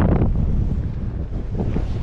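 Wind buffeting the microphone: a heavy, uneven low rumble, with a stronger gust right at the start that eases off.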